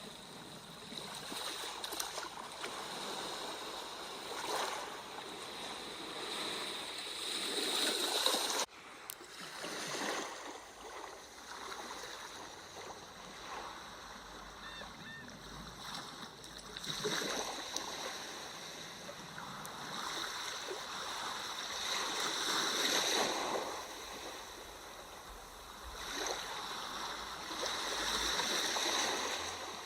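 Ocean waves washing ashore and drawing back, the surf swelling and fading every few seconds. There is a brief sudden dropout about nine seconds in.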